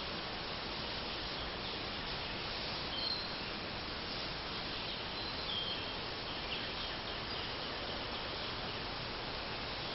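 Woodland ambience: a steady background hiss with a few short, high bird chirps scattered through the middle.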